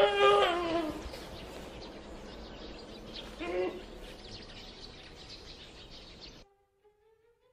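A dog's high-pitched distress cry, held and then falling away in the first second, with a second, shorter cry about three and a half seconds in, over a steady hiss; the dog is in a tiger's grip. The sound drops to near silence about six and a half seconds in.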